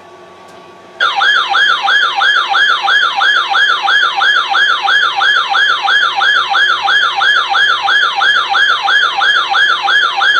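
Weather alert radio's electronic alarm siren: a loud, rapidly repeating falling sweep, about three a second, that switches on about a second in. It marks an incoming warning alert.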